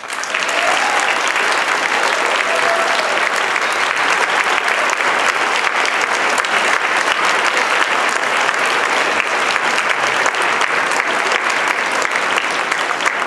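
Audience applauding at the end of a children's choir song. The clapping starts suddenly and holds steady.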